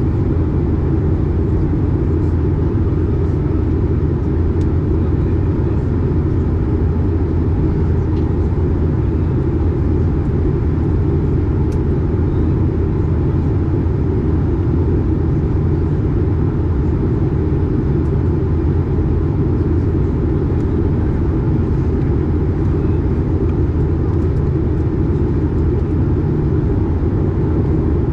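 Steady cabin noise of an Airbus A220 in flight, heard from a seat beside the wing: a constant low rumble of airflow and its Pratt & Whitney PW1500G geared turbofan engines.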